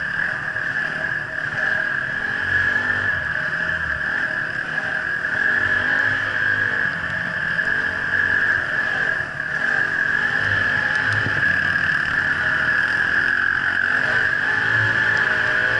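Off-road dirt bike engine running while riding, its pitch rising and falling with the throttle, over a steady high hiss.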